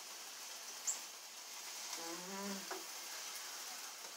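Steady hiss with faint crackles, typical of food sizzling on an electric George Foreman grill. A brief hummed voice comes in about two seconds in.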